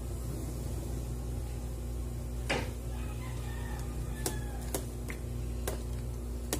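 Metal ladle stirring broth in a large metal pot, clinking against the pot five times, over a steady low hum. A rooster crows faintly in the background.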